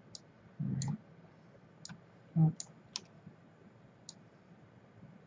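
Computer mouse buttons clicking, about six separate clicks spread out, as elements are selected and dragged in a 3D program. There are also two short low sounds, the louder one about two and a half seconds in.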